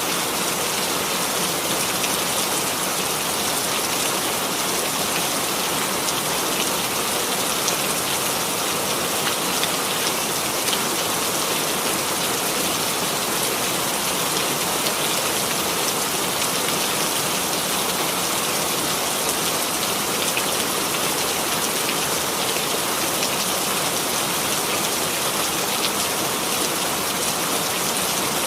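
Steady rain falling on a surface, an even hiss of many small drops with faint patters, unchanging throughout.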